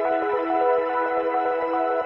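Background music: soft electronic ambient music with steady sustained notes.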